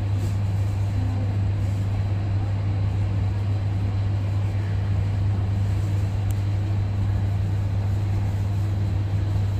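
Steady low drone of an airliner on the ground, an even hum with a faint rushing noise above it and no change in level.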